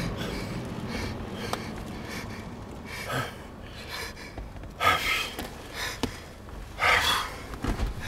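A shaken man breathing hard and gasping, with a few loud breaths about three, five and seven seconds in. A low rumble dies away in the first moment.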